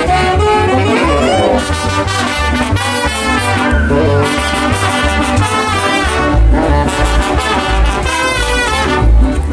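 Band playing Latin dance music with trumpets and trombones over a steady pulsing bass beat.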